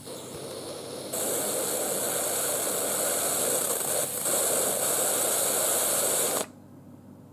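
Steam hissing out of an Instant Pot Duo Evo Plus lid as the pressure cooker heats up toward pressure. The hiss gets louder about a second in and cuts off suddenly near the end.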